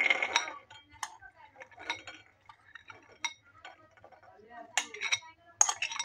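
Sprouted chickpea chaat tipped from a glass bowl onto a ceramic plate. The chickpeas rush and slide out at the start, then come scattered clinks and scrapes as a spoon pushes the rest out of the bowl, with the loudest clinks near the end.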